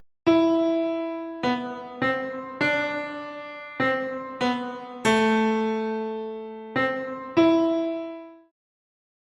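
A piano-like keyboard plays a slow melody of about nine struck notes, each fading after it is struck. The first note and one about five seconds in are held longer. The last note rings out and dies away shortly before the end.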